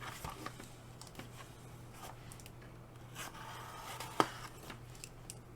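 Small box-cutter knife slitting the packing tape on a cardboard box: scattered scraping and tapping, a longer rasp of the tape being cut, and one sharp click just after four seconds in.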